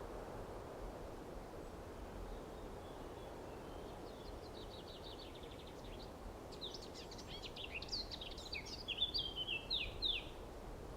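Outdoor ambience: a steady low background rumble, with a small songbird singing. The bird gives a quick trill about four seconds in, then a run of varied chirps that ends shortly before the close.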